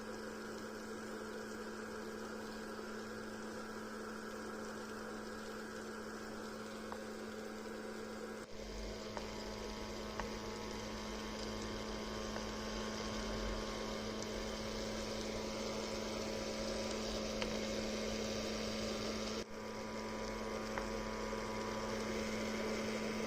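Small DC motor of a homemade mini vacuum cleaner running steadily with a constant hum and hiss. The sound changes abruptly twice, after about eight and about nineteen seconds, and grows a little louder and deeper after the first change.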